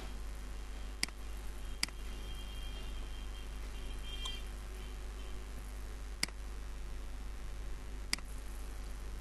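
Four sharp computer mouse clicks at uneven intervals over a steady low hum and faint hiss.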